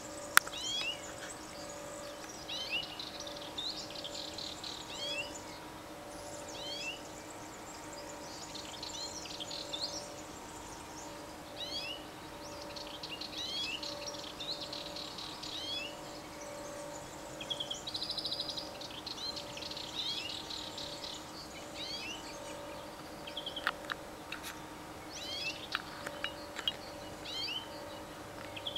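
Several songbirds singing, with quick chirps and trills repeating in short phrases, over a faint steady hum.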